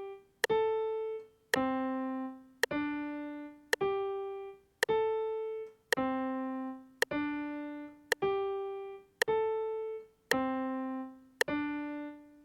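Piano playing single notes, one per beat at about one a second, with a metronome click on each beat. It plays the four-note figure G, A, C, D three times over.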